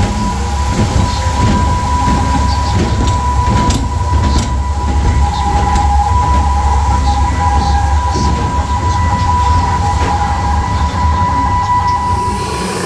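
Deep, steady rumble from the ride boat and its machinery as it moves through a tunnel. Over it, a steady high two-note tone is held and stops just before the end.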